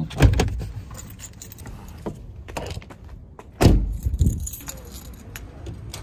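Keys jangling and clinking with handling noise, broken by two heavy thuds: one just at the start and a louder one about three and a half seconds in.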